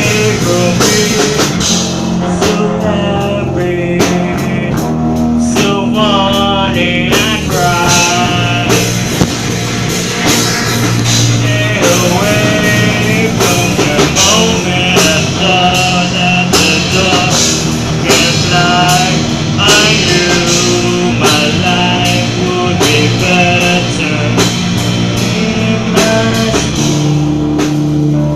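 Rock music with singing, electric guitar and a drum kit keeping a steady beat.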